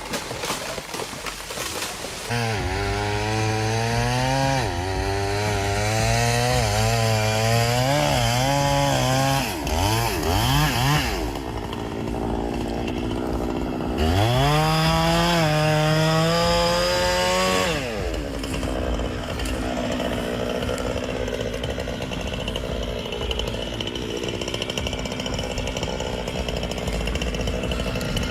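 A few sharp clicks, then a two-stroke chainsaw running and cutting, its engine pitch rising and falling again and again. About fourteen seconds in it revs up to a high held pitch for a few seconds, then drops back to a lower, steadier run.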